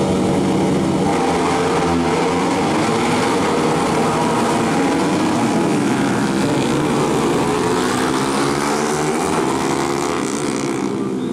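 A pack of 150cc four-stroke supermoto motorcycles launching off the start line and racing. One held engine note is followed, about a second in, by many engines revving together, their overlapping pitches rising and falling through the gear changes, easing off slightly near the end as the pack pulls away.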